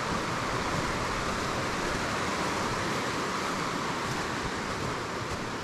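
Snowmelt mountain stream rushing, a steady hiss of running water that cuts off suddenly at the very end.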